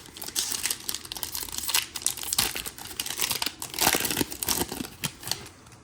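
Plastic wrapper of a Select trading-card pack being torn open and crumpled: a dense crinkling crackle, loudest about four seconds in.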